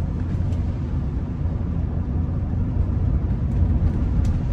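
Steady low rumble and road noise of a Rolls-Royce Silver Spirit on the move on wet roads, heard from inside the cabin, with a couple of faint ticks near the end.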